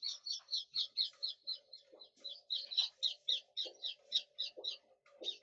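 Whiteboard marker squeaking against the board as it writes, a fast run of short, high squeaks about five a second.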